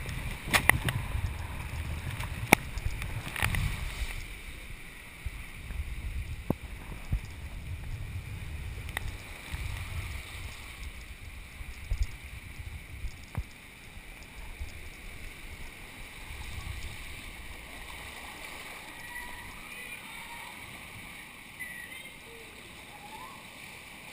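Water rushing and a rider's body rumbling along a fibreglass water slide, with sharp knocks against the slide in the first few seconds and a few more later. The rumble fades after about four seconds, leaving a softer wash of running water as the rider circles the open bowl.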